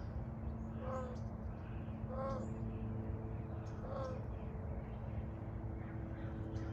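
Young peachick (Indian peafowl) giving short wheezy calls, three of them about a second and a half apart, each rising and then falling in pitch.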